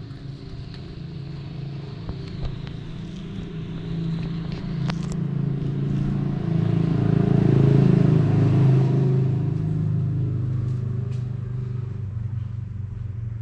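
A vehicle engine running steadily, growing louder to a peak about eight seconds in and then slowly fading, as if it comes close and moves off again.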